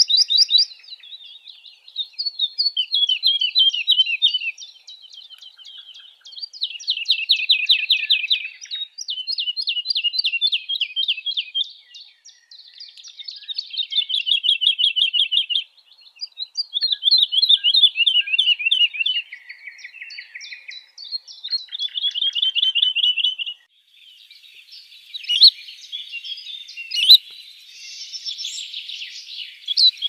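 Woodlark singing: a string of separate phrases, each a fast run of repeated high notes lasting a second or two, several falling in pitch, with short pauses between them. Near the end the song turns scratchier and more jumbled.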